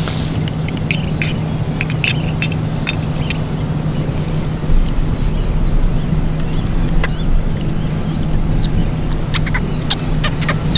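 Wood fire and a pan of food cooking on the embers: a steady hiss with frequent small crackles and clicks. A short high chirp repeats two or three times a second through the middle.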